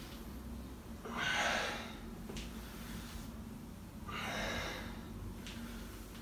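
A man breathing hard from exertion during bodyweight squats: two loud, noisy exhalations about three seconds apart, each followed shortly by a faint click.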